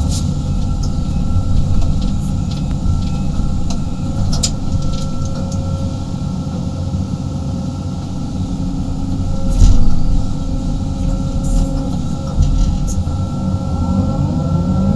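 A 35-ton excavator's diesel engine and hydraulics running under digging load, heard from inside the cab: a deep steady drone with a thin steady whine above it. A few sharp knocks and scrapes come from the bucket working soil and stones, the loudest about two-thirds of the way through.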